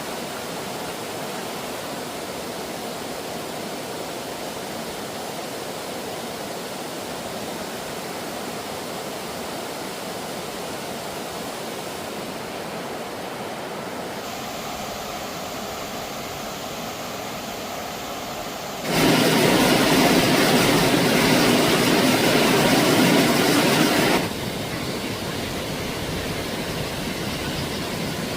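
Steady rush of flowing stream water. About two-thirds of the way in it abruptly becomes much louder for about five seconds, then drops back to a lower rush.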